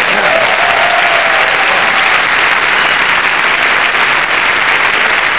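Large audience applauding, dense steady clapping.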